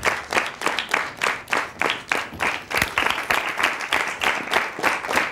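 Audience applauding, a steady run of sharp claps.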